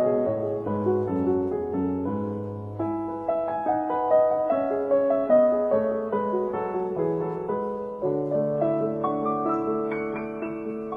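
Background piano music: a gentle run of single notes over lower held bass notes.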